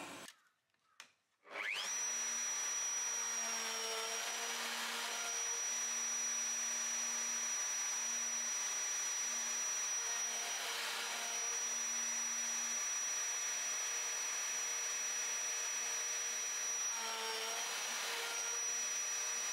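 Plunge router winding up to a steady high whine about a second and a half in, then running as its bit cuts across a board on a router sled to flatten it. The pitch sags slightly near the end.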